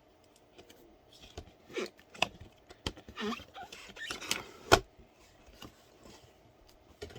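A cardboard product box being opened and handled, with rustling and scraping of cardboard and several light taps, and one sharp knock about two-thirds of the way through.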